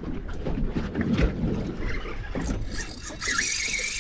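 Sea water slapping against a small boat's hull, with wind on the microphone and a few knocks. About two and a half seconds in, a high-pitched buzz starts and carries on.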